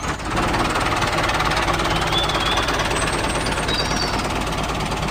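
A small machine running steadily with a fast rattle, cutting in abruptly.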